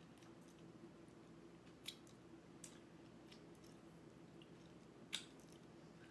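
Faint mouth sounds of a person chewing balut, a boiled duck egg, with small wet clicks and two sharper lip smacks about two and five seconds in, over a faint steady hum.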